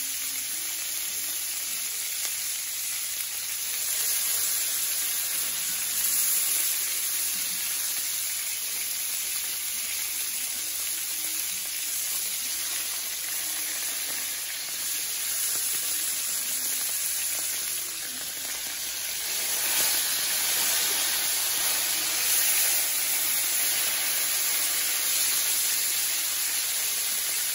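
Beef tenderloin steaks sizzling steadily as they sear in a hot cast-iron skillet.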